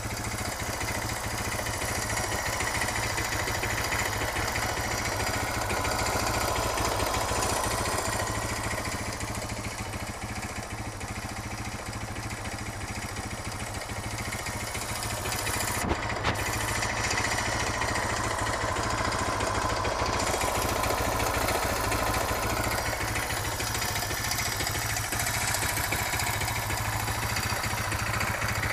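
Suzuki DR650's single-cylinder four-stroke engine running at idle with a rapid clacking tick over the engine note. The clack remains although the valve clearance and cam chain tensioner have been checked. The owner does not know its cause.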